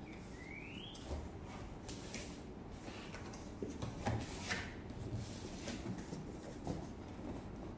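Corrugated cardboard shipping box being opened by hand: soft rubbing and scraping of the cardboard flaps, with a short rising squeak about half a second in.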